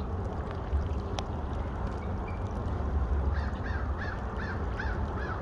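A bird calling over and over, a quick run of short arched calls at about three a second, starting a little past the middle, over a steady low rushing noise.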